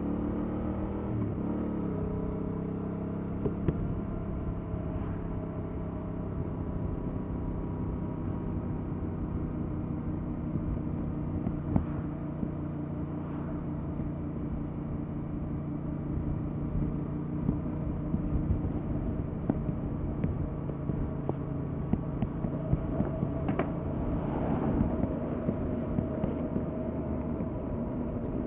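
Stock 2021 Yamaha MT-07's parallel-twin engine and exhaust running under way at a fairly steady cruise. The pitch drops and climbs again briefly about a second in, then holds nearly level.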